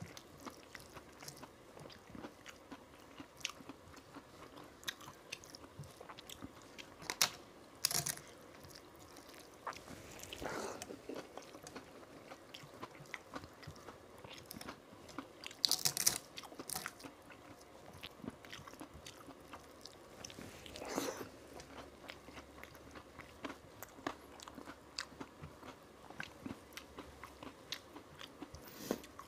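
Close-miked eating by hand: chewing and mouth sounds, the wet squish of rice and dal being mixed with the fingers on a metal plate, and a few louder crunches of fried papad.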